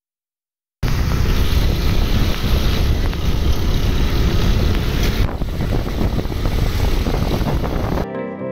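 Loud wind rumble on the microphone from a moving vehicle, cutting in abruptly about a second in after dead silence.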